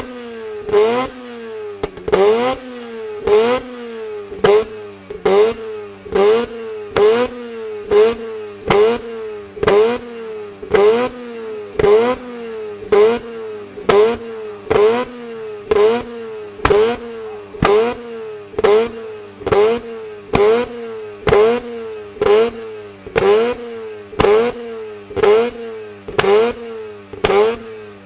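Car engine revving in short rising bursts, each ending in a sharp exhaust pop, repeating evenly a little more than once a second.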